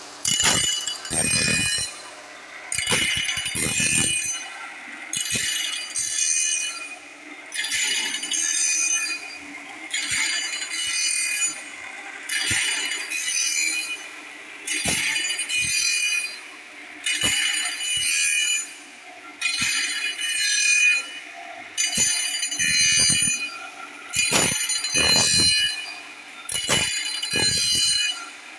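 Automatic bandsaw-blade sharpener grinding the teeth of a steel bandsaw blade with its abrasive wheel: a shrill grinding about every two and a half seconds, each pass lasting about a second and a half, with sharp clicks in between.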